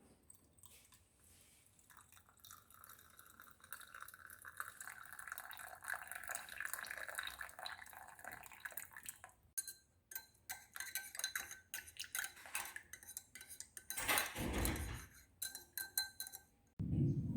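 Kitchen utensils and glassware clinking and tapping during citrus-juice preparation, a dense run of light clinks with a louder clatter about fourteen seconds in. A low steady hum starts suddenly just before the end.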